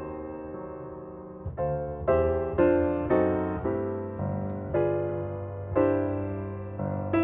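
Slow, gentle solo piano music, single notes and chords struck about every half second to a second and left to ring away.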